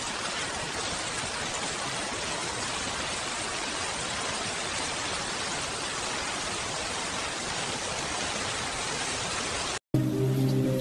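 Steady rain, an even hiss with no single drops standing out. It cuts off abruptly near the end, and soft music with held low tones comes in.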